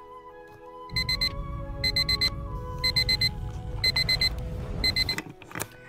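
Digital alarm clock sound effect beeping: quick runs of four high beeps about once a second, starting about a second in and stopping about five seconds in, with a low rumble beneath, over soft music.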